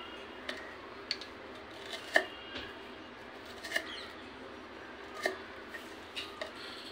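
Kitchen knife cutting a slab of green chilli paste on a wooden chopping board: several sharp knocks of the blade on the wood at irregular intervals, the loudest about two seconds in, with soft handling of the pieces between them.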